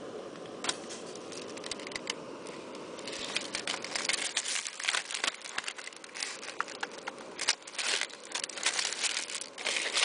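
Aluminium foil crinkling as hands handle it, with small clicks and knocks from a mug and food containers. The crinkling starts about three seconds in and grows denser, with sharp crackles near the end.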